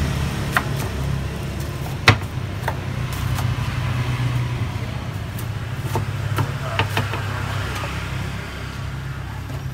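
A cleaver knocking sharply on a wooden cutting board as a fried martabak is chopped into pieces, about half a dozen strokes, the loudest about two seconds in. A steady low rumble runs underneath.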